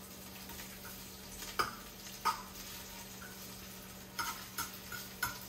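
Chopped red onions frying gently in olive oil in a rectangular Copper Chef pot, a faint sizzle under a low steady hum. A utensil stirring them clicks against the pan about five times, twice in the first half and several in quick succession near the end.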